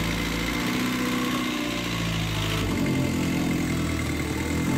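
A sailboat's inboard diesel engine running steadily, its note changing about two and a half seconds in. The engine is acting up, limping along and threatening to die.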